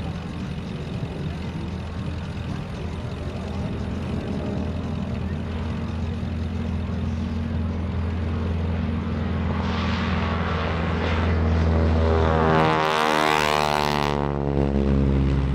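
North American SNJ-2 Texan's Pratt & Whitney R-1340 nine-cylinder radial engine at full power as the plane takes off and climbs toward the microphone, steadily louder. It passes close about thirteen seconds in, the loudest point, and its pitch drops sharply as it goes by.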